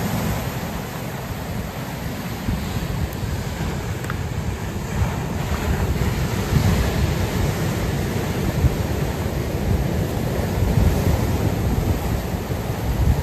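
Ocean surf breaking and washing in over a rocky cobble shore, swelling and easing, with wind buffeting the microphone.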